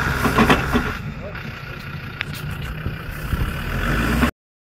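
Land Rover Defender 110 Td5's five-cylinder turbodiesel running under load, with a low rumble that grows towards the end, as the vehicle, hung up on a tree stump, tries to drive off it. The sound cuts off suddenly near the end.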